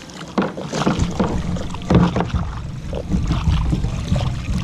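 Water splashing and irregular knocks against a plastic kayak hull as a small halibut is lifted from the water alongside the kayak, over a low rumble.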